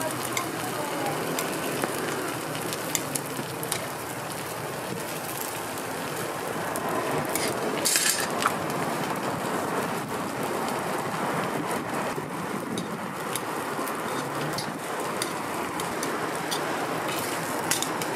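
Egg and bread sizzling on a flat-top griddle: a steady frying hiss with scattered light clicks, and a brief louder hiss about eight seconds in.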